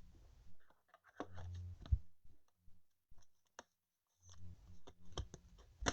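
Trading cards and their packaging being handled: scattered light clicks, taps and short rustles.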